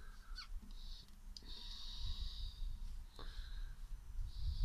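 A person breathing slowly close to the microphone, a few long breaths, over a low rumble of handling noise.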